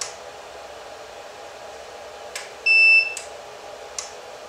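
Elinchrom D-lite 4 studio strobe's ready beep: one loud, high electronic beep about half a second long, a little before halfway through, signalling the flash has recycled. A few sharp clicks come around it, over a steady electrical hum.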